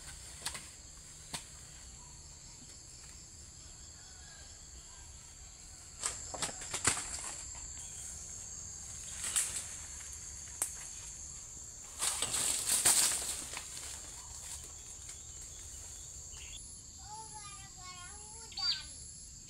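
Bursts of rustling banana leaves as the banana plant is worked, the loudest about twelve seconds in, over a steady high insect drone. A short wavering call comes near the end.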